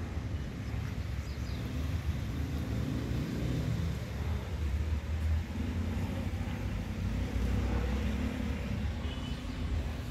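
City road traffic: cars and other vehicles passing with a steady low rumble of engines and tyres, swelling a little as vehicles go by in the second half.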